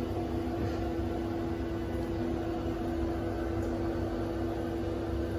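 Steady hum of central-heating plant machinery, the boiler and its circulating pumps running: one steady mid-pitched tone over a constant low rumble.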